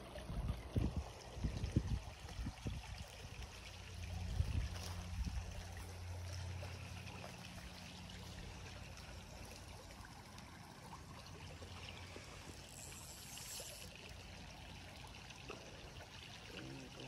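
Faint trickle of a small creek's running water, with a few low bumps in the first two seconds.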